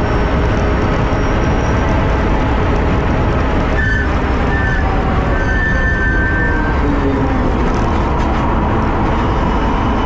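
Onboard sound of a Tesla-powered electric race car at speed: wind rush and tyre roar fill the sound, under a steady whine from its electric drive motors that rises in pitch near the end as it accelerates.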